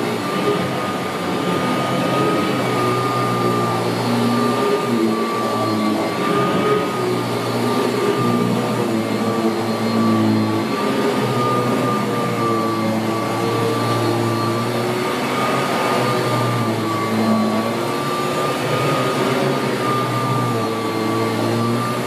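1981 Kirby Heritage 1 upright vacuum cleaner running steadily on carpet, a constant high whine over a lower hum that shifts slightly as it is pushed back and forth.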